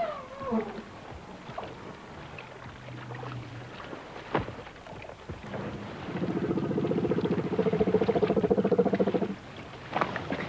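Elephant calls from an African elephant herd around a calf stuck in mud. A high, wavering call slides down and trails off in the first second, and later a low, throbbing call lasts about three and a half seconds, with a few sharp knocks in between.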